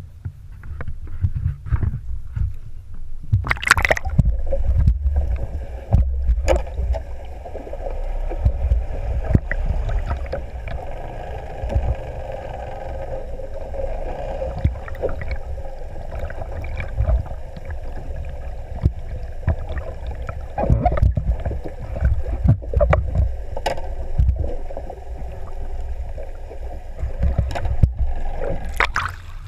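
Muffled underwater sound picked up by an action camera dipped over the side of a boat: a low rumbling wash of moving water with a steady muffled hum. There are sharp splashes as it goes under, a few seconds in, and again as it comes back out near the end.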